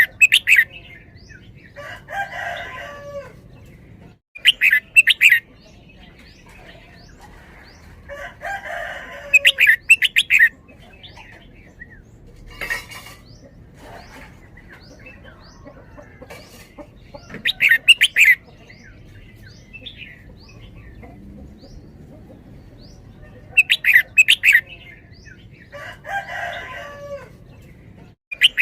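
Red-whiskered bulbul singing: loud, short bursts of sharp, quickly repeated notes every few seconds, with softer, lower warbling phrases in between.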